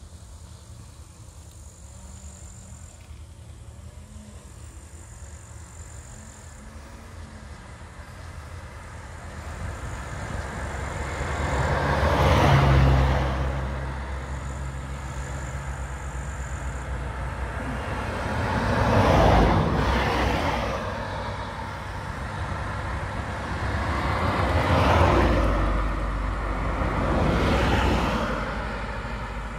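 Road traffic: four vehicles drive past one after another, each swelling up and fading away, with a low rumble between them; the last two come close together near the end.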